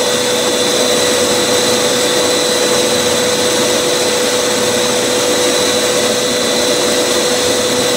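Tool post grinder running its wheel inside a spinning 3-jaw lathe chuck, grinding the hardened steel jaws to true up their bell-mouthed grip: a steady whine over a grinding hiss.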